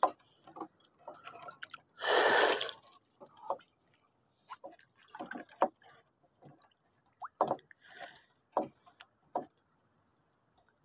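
Water sloshing and splashing against a small wooden boat's hull in short, irregular bursts, with one louder splash about two seconds in.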